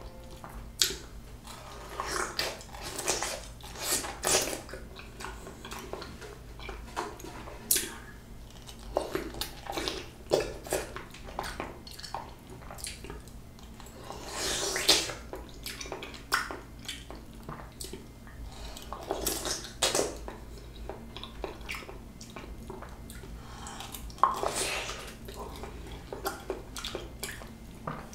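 Close-miked eating of a ripe peach: wet bites, sucking and chewing smacks, irregular and close together, with a few louder bites or slurps, one about halfway through.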